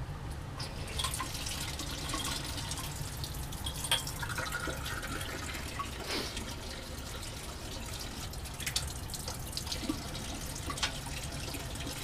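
Laboratory sink tap running, water splashing steadily into the sink, with a few light clicks.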